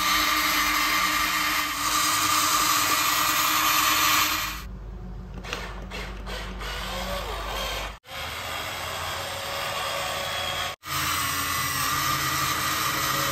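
Small electric motors and plastic gearboxes of a Huina radio-controlled toy excavator whirring as it works its arm and bucket. The whine drops quieter and changes pitch about four seconds in, and cuts out twice very briefly.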